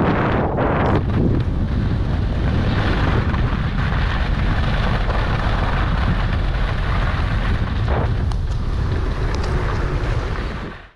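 Wind rushing over a body-mounted action camera's microphone as a skier glides downhill, mixed with the hiss of skis sliding on packed snow. It fades out quickly at the very end.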